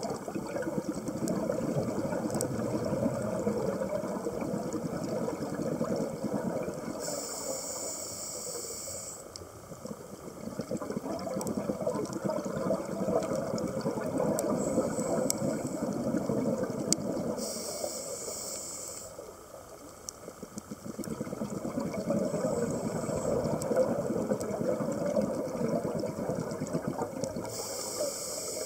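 Scuba diver breathing through a regulator underwater. Long stretches of bubbling exhalation alternate with a short high hiss of inhalation about every ten seconds, three times.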